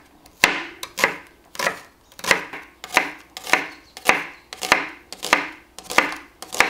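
Chef's knife chopping spring onion and onion on a wooden cutting board: a steady run of about eleven cuts, a little under two a second.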